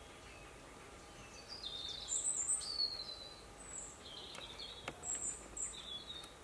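Small birds chirping in two bouts of short high calls, the first about a second and a half in and the second from about four seconds, over a steady outdoor hiss.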